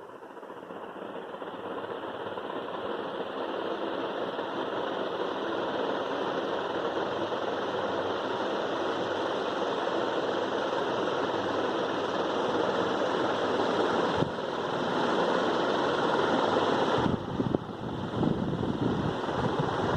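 Ventisol Commercial VT01 ceiling fan running, growing louder over the first few seconds as it speeds up and then holding a steady whirring rush of air. Near the end the sound drops briefly and then turns more uneven.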